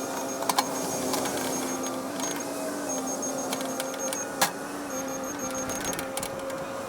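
Cat 308 excavator running: a steady mechanical whine whose pitch shifts a little as it works, with a few sharp knocks, the loudest about four and a half seconds in.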